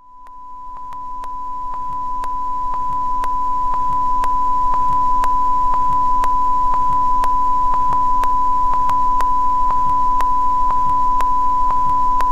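Steady, high-pitched reference test tone of the kind played with colour bars, fading in over the first few seconds and then holding. Under it are a faint low hum, a light hiss, and light clicks about twice a second.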